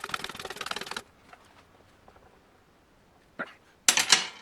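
A ratchet wrench clicking rapidly for about a second as the 10mm bolt holding the TV cable is backed out of the transmission case. Near the end come a click and then loud metallic clatter of tools or parts on metal.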